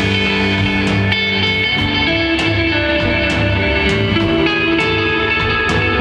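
Live instrumental desert-rock band: guitar holding sustained notes over bass guitar and drums, with cymbals struck about once a second.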